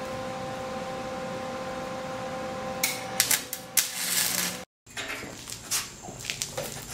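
Electric welder humming steadily, then bursts of crackling and hissing from the arc as welding starts about three seconds in, cut off suddenly; afterwards scattered clicks and taps.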